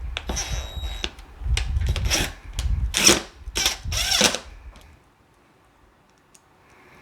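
Screws being driven back into the side service panel of a Westinghouse iGen4500 inverter generator: a few short tool spurts with knocks and handling of the panel, then quiet for the last two seconds.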